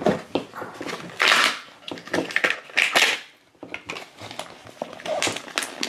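Hands crinkling and rustling the plastic wrapping of a Cutie Mark Crew blind-bag capsule while trying to open it, in a string of short crackly rustles with two louder bursts.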